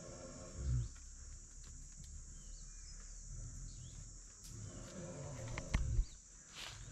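Wild Asian elephant rumbling low, once just before a second in and again for over a second from about four and a half seconds in, with two sharp thuds close together near six seconds.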